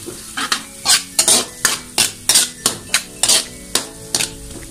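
A metal ladle scraping and stirring against a metal wok, with quick repeated strokes at about three a second. The wok holds chili, garlic and onion sautéing in butter and oil.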